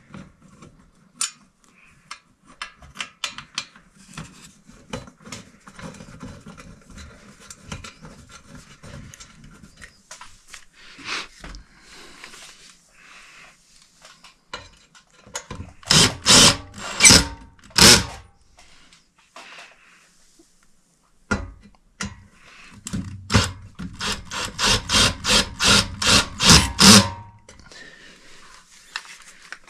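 Screws being driven into a ceiling fan's mounting bracket: scattered clicks and scraping, then a few loud rasping strokes about halfway through, and a run of about a dozen evenly spaced strokes near the end.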